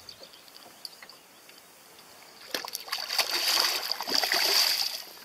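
A hooked pike thrashing at the surface beside the boat, splashing hard for about two and a half seconds from roughly halfway in.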